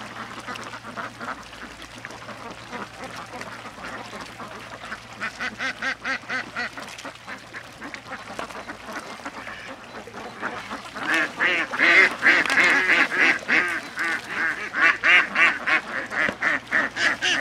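Birds calling in fast runs of short, repeated calls, about five a second: a short run about five seconds in, then a louder, longer run from about eleven seconds on.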